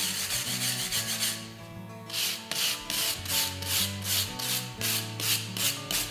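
Hand-held steel wire brush scrubbing back and forth across painted brick, about three scraping strokes a second with a short pause a second or so in, scouring off excess red oxide pigment.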